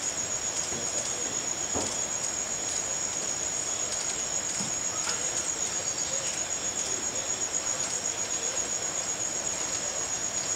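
Rainforest insect chorus: a steady, high-pitched, pulsing trill that goes on without a break, with a few faint ticks over it.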